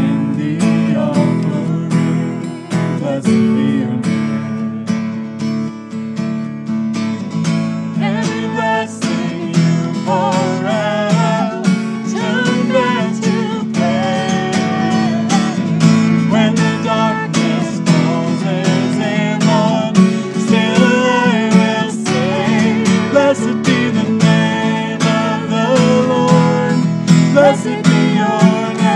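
Acoustic guitar strummed steadily while a man and a woman sing a worship song together.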